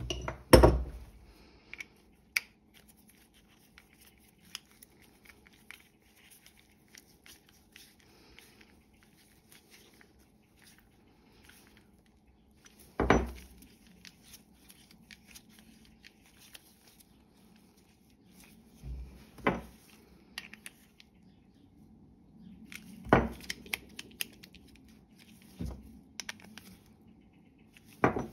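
Pruning secateurs handled and worked by hand: scattered small metallic clicks and clacks from the blades and catch, with a few sharper knocks spaced several seconds apart.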